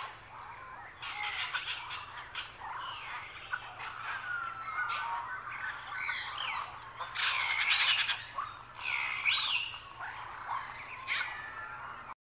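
Several birds calling together in overlapping chirps, whistles and gliding notes, a bird chorus with no one call dominating. The sound stops abruptly near the end.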